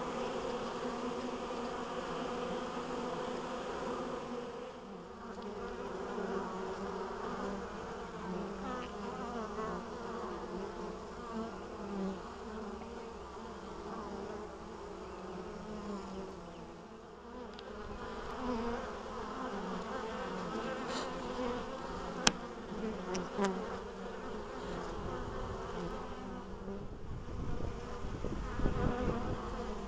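Honeybees buzzing at a hive entrance: a shifting drone of many overlapping wingbeats from foragers flying in and out on a busy spring day. A few sharp clicks come about two-thirds of the way through, and a low rumble near the end.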